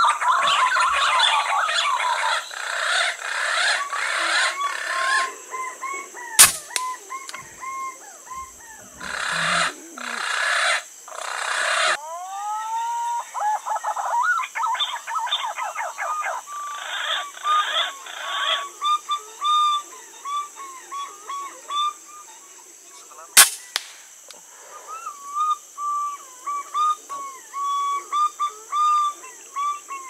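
Repeated whistling green-pigeon calls, rising and falling around one pitch. They are broken by two sharp cracks of a PCP air rifle, one about six seconds in and one about twenty-three seconds in. Bursts of rushing noise come and go in the first twelve seconds.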